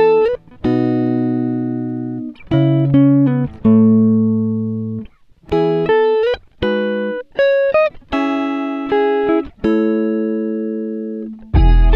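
Background music: a guitar picking short melodic phrases of single notes, with small slides between notes and brief pauses between phrases. Near the end a louder, fuller chord with bass comes in.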